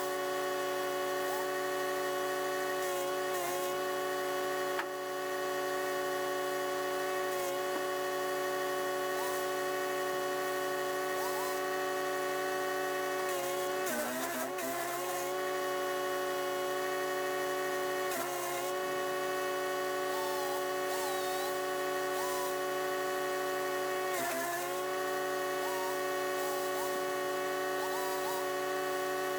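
The wood chipper's 420cc four-stroke engine running steadily, its pitch dipping briefly four times as it bogs under load. The biggest dip, about 14 s in, comes with a rough grinding as branches go through the blades.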